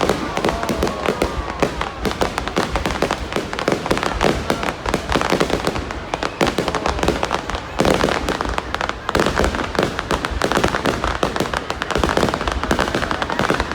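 Fireworks display: many shells and crackling effects bursting in rapid, continuous succession, a dense mix of bangs and crackles.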